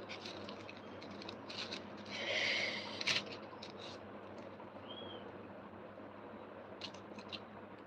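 Quiet room with a few faint light clicks and a brief soft rustle about two seconds in: small handling noises.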